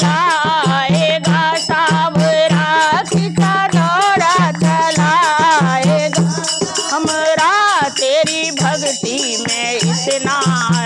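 Women singing a Hindi devotional bhajan in an ornamented, wavering melody, accompanied by a dholak drum beating a steady rhythm with a deep, ringing low note on its bass head, and a shaken hand rattle adding a continuous jingling beat.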